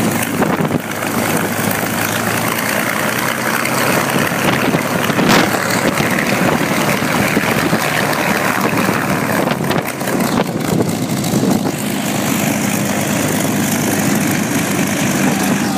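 North American P-51D Mustang's Packard Merlin V-12 engine running steadily at idle, propeller turning.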